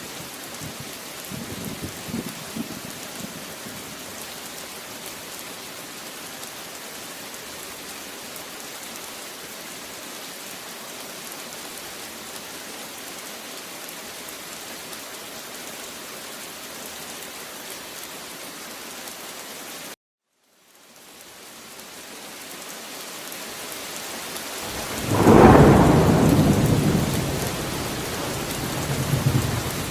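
Steady rain falling, with a faint rumble of thunder a couple of seconds in. About two-thirds through the rain cuts out for under a second and fades back in, then a loud clap of thunder breaks near the end and rolls on in a long rumble that swells once more.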